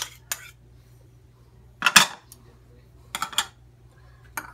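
Spoon clinking and scraping against a cup while the last of the yogurt is knocked out into a cooking pot. There are a handful of sharp clicks, and the loudest is a heavier knock about two seconds in.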